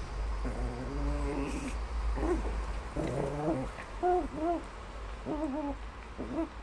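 Small dog vocalizing during rough play-biting: a series of short, pitched growly grumbles that rise and fall, about one a second.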